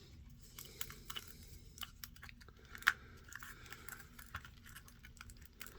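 Plastic action figure parts being handled: scattered faint clicks and small rustles, with one sharper click about three seconds in.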